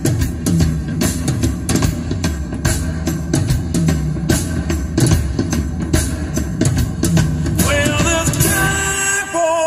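Live rock music playing through a car's upgraded audio system (Focal Utopia M midrange and K tweeter speakers driven by an Audison Forza DSP amplifier), heard in the cabin: a drum kit plays a busy, hard-hitting passage, and guitar and singing come in near the end.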